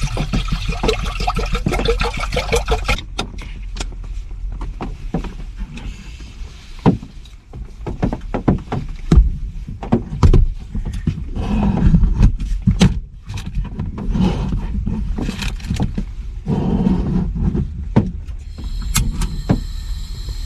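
Water pouring into a pot for about three seconds, then a run of scattered knocks and clatters of cooking gear being handled.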